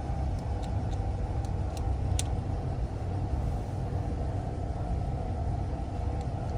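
Steady low machinery rumble, typical of the other Brunswick A-2 pinsetters running nearby, with a few light metallic clicks in the first couple of seconds as the scissor and spacer are handled.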